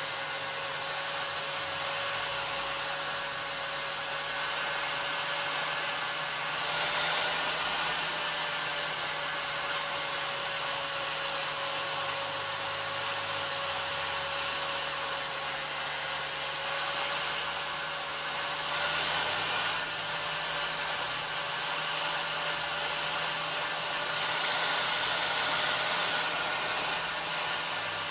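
Power tool running steadily under load against steel, cutting out an old rivet that joins the cross member to the car's frame.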